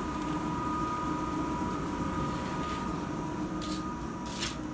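Rice mill machinery running with a steady drone and a high whine, with short hissing bursts near the end.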